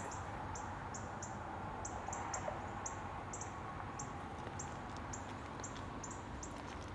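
Short, high-pitched chirps from a small animal, repeating evenly about twice a second, over a faint steady background noise.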